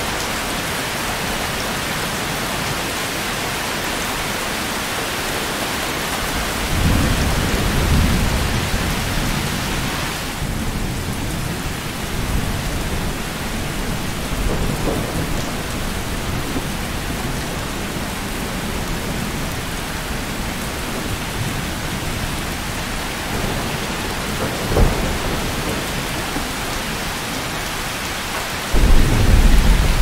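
Heavy rain falling on a metal shed, a steady dense patter and hiss, with low rumbles of thunder swelling about seven seconds in and again near the end.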